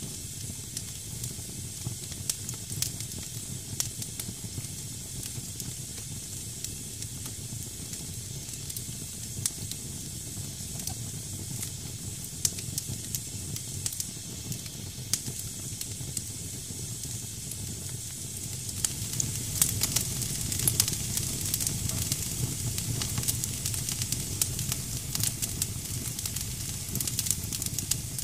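Wood fire in a fireplace: damp firewood hissing steadily as its moisture boils off, with scattered sharp crackles and pops. About two-thirds of the way through, the hiss and crackling grow louder and the pops come more often.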